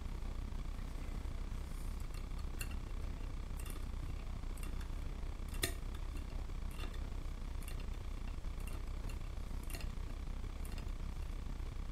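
Light, irregular clicks of a loom pick touching the metal nails of a wooden nail loom as yarn loops are lifted over them, the strongest about halfway through, over a steady low hum.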